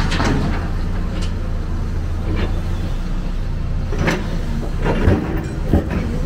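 Excavator's diesel engine running steadily under load, with intermittent scraping and clattering from the working bucket and the material it handles. The strongest clatters come about four and five seconds in.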